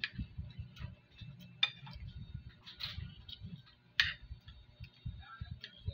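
Metal spoon and fork clinking against a ceramic plate while eating, a few sharp, irregularly spaced clinks over soft handling noise.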